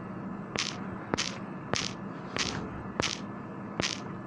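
Key taps on a smartphone's on-screen keyboard while a password is typed in: six short, sharp clicks, a little over one a second, over a low steady hum.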